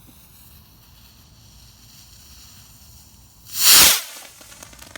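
A lit firework fuse hissing faintly, then about three and a half seconds in the firework goes off with a loud burst lasting about half a second, followed by a few small crackles.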